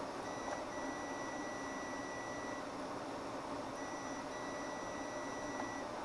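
Digital multimeter beeping on a continuity test, the probes closing a circuit through the wire: a steady high tone held about two seconds, broken briefly near its start, then again the same way a second later, over a steady background hiss.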